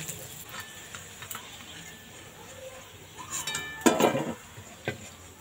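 A metal spoon clinking and ringing against a steel plate and an aluminium karai as fried pithas are lifted out of the oil: light clinks about three seconds in, one louder ringing knock a moment later, and a last small clink near the end. Before that there is only a faint hiss from the frying oil.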